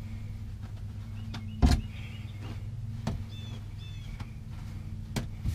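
Hand and paper towel knocking a few times against the metal walls of a bait tank while wiping its inside clean with alcohol, the loudest knock a little under two seconds in, over a steady low hum.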